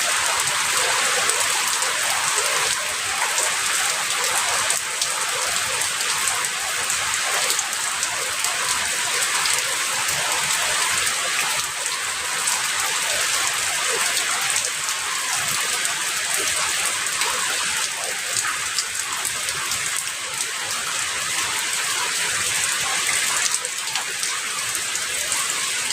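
Steady rain falling, an even hiss of many small drops pattering on a surface.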